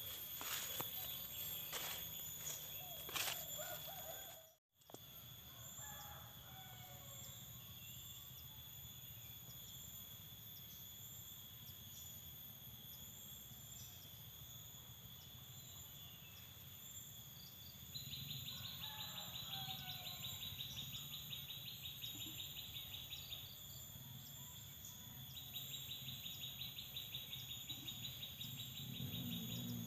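Insects shrilling steadily at several high pitches, with a rapid pulsing insect call that starts about eighteen seconds in, stops, and comes back a little later; a few short bird chirps now and then.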